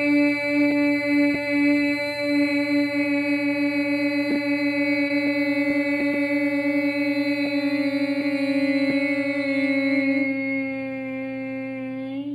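One voice holding a single long sung note on the liver healing sound "xu" ("shoo"), steady in pitch with a slight waver. Over the last couple of seconds it sags a little in pitch and grows quieter, then stops.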